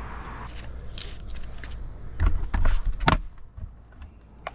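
Metal climbing hardware clinking in a few sharp clicks, with rubbing and handling noise and a low rumble that swells for about a second midway.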